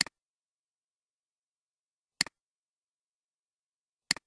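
Three sharp double clicks, each a strong click followed straight away by a fainter one, about two seconds apart in otherwise dead silence.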